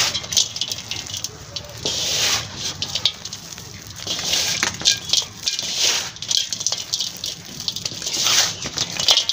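Potting mix of cocopeat, garden soil and sand being mixed by hand in a metal tub. Handfuls are scooped up and let fall, giving a rustling, grainy pour that swells and fades every second or two, with small clicks of grit.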